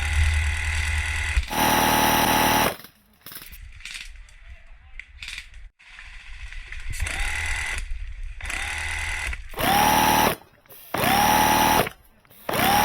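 Airsoft minigun firing in repeated bursts, about five or six, with its electric motor whining up to speed at the start of several of them.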